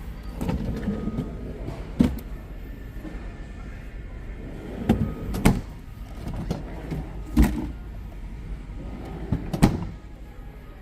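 Refrigerator doors being opened and shut, a handful of sharp clunks a couple of seconds apart over low handling noise.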